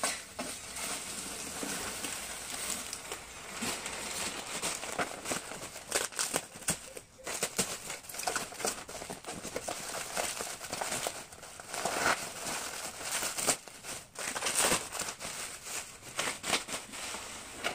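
Bubble-wrap packaging crinkling and crackling as a tightly wrapped, hard-to-remove car spoiler is handled and pulled out of its cardboard box, a continuous rustle full of sharp little crackles.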